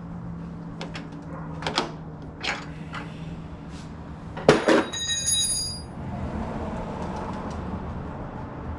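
Metal tools and engine parts clicking and knocking during an engine-bay teardown. About four and a half seconds in comes a hard double clank of metal on metal, which rings brightly for about a second before dying away, followed by rustling and scraping.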